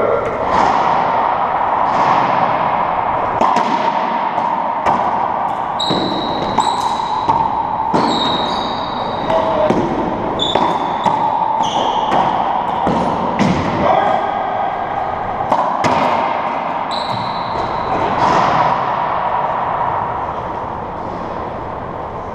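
Racquetball rally in an enclosed court: a long run of sharp hits as the ball cracks off racquets and walls, each echoing off the walls, with short high squeaks of sneakers on the hardwood floor, most often in the middle of the rally.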